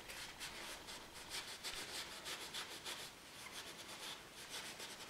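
Sheet of kitchen paper rubbed and rustled between gloved hands in quick, repeated wiping strokes, pausing briefly about three seconds in.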